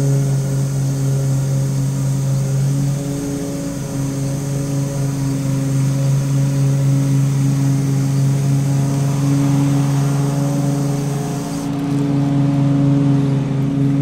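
Aerosol can of Maxima chain wax spraying onto a motorcycle's drive chain: a steady hiss that cuts off abruptly about twelve seconds in. A louder, steady low hum lies underneath.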